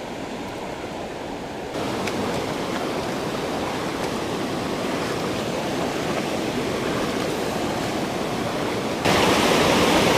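Fast-flowing creek water rushing steadily. It gets louder in two sudden steps, about two seconds in and near the end.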